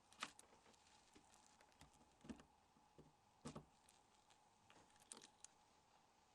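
Near silence with a few faint, short clicks and taps, about five spread over six seconds: a small tool working the camera module out of a Nokia N76 phone.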